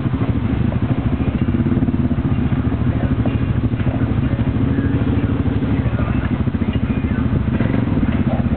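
Side-by-side utility vehicle's engine running steadily with an even, fast pulse as the vehicle creeps down a rocky trail.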